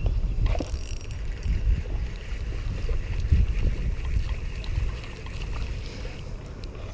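Wind rumbling on a chest-mounted camera's microphone while a spinning reel is cranked, with a faint steady whir and a few light clicks.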